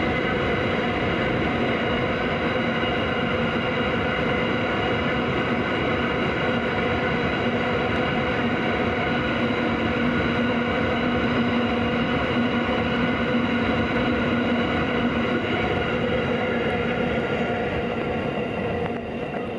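Freight train of mostly empty container flat wagons rolling past, a steady rumble of wheels on rail with ringing tones running through it. The sound begins to fade near the end as the last wagons go by.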